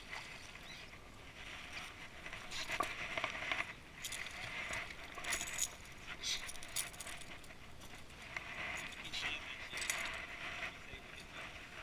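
Splashing of a hooked fish at the water's surface, then scattered sharp knocks and clinks as the fish and tackle are handled on a skiff's deck, over a steady hiss.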